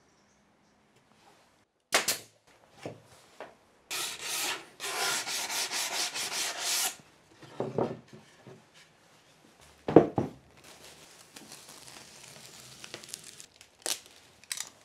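Wood being worked by hand: a sharp knock, then about three seconds of rapid rubbing strokes like hand sanding, and a heavy thud about ten seconds in. Near the end a faint rustle of plastic stretch wrap being pulled across a table, with a couple of light clicks.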